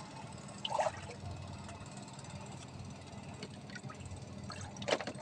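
Water at a fishing raft splashing in small bursts, about a second in and again near the end, over a steady low hum.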